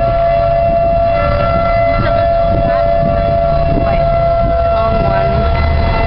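Outdoor warning sirens sounding a steady tone for a tornado warning, over a heavy low rumble.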